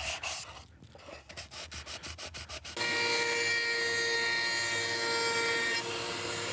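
Hand sanding a wooden box with a sanding block: quick back-and-forth scrubbing strokes, about five a second, that fade and then carry on faintly. About three seconds in, a router mounted in a router table starts and runs with a steady high whine while a small chamfer is cut on the wood.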